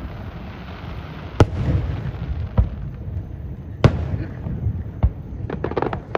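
Aerial fireworks bursting: four sharp bangs a little over a second apart, then a quick run of smaller pops near the end.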